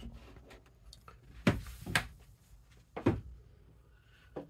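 A few short wooden knocks and thuds, two close together about one and a half seconds in, another about three seconds in and a faint one near the end, from handling the teak cabinetry and moving about on the wooden cabin floor.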